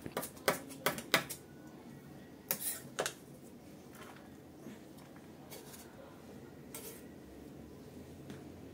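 Kitchen knife chopping green onions on a wooden cutting board: about five quick knife strikes in the first second or so, and two or three more knocks around two and a half to three seconds in, then only faint room tone.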